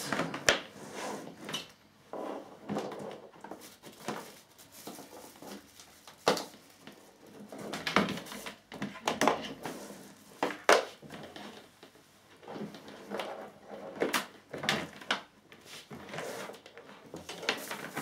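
Irregular handling noises in a small room: scattered clicks and knocks with rustling between them, a few sharper knocks standing out, as things are fiddled with by hand.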